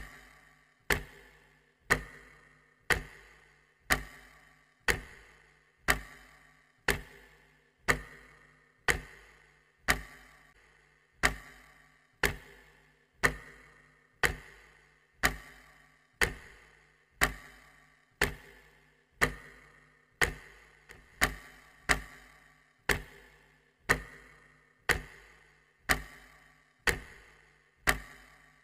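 Clock-ticking sound effect: one sharp, even tick about every second, marking time passing.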